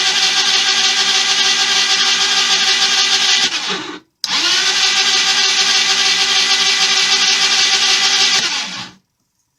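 Electric starter cranking the Jonway YY250T 250cc scooter engine in two long tries of about four and five seconds, a steady whine with a short break about four seconds in and a brief slowing at the end of each. The engine turns over but never fires: a no-start despite fuel reaching it.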